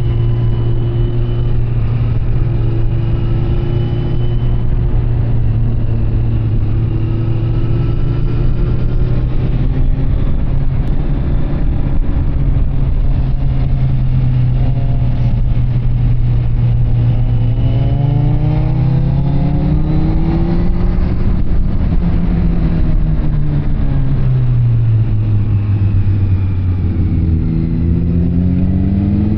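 Kawasaki Z900 SE's inline-four engine through an SC Project CR-T carbon exhaust, cruising at steady revs for a long stretch. About two-thirds of the way in it revs up and then drops back, and near the end it revs up again.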